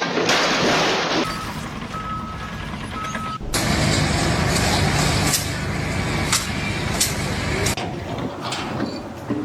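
Heavy truck sounds: a short burst of air hiss, then three short beeps like a reversing alarm. After a cut, a heavy engine runs with several sharp knocks.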